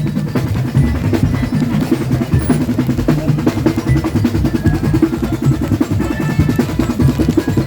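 A parade drum band playing a fast, dense beat, with snare rolls over bass drum.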